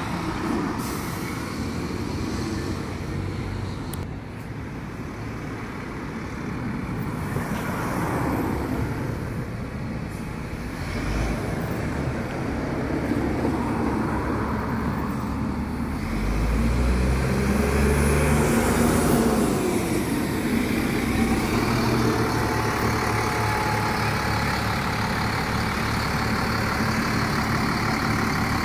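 Buses and town traffic: a bus pulls away and a car drives past, then from about halfway a bus engine runs close by, steady and louder, as a double-decker moves off.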